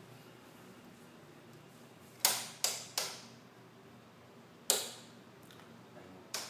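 Five sharp clacks, each with a short echo: three in quick succession a little past two seconds in, another near five seconds, and a last, softer one at the end.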